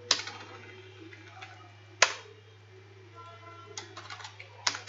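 Three isolated sharp clicks from a computer keyboard and mouse, about two seconds apart, over a low steady hum.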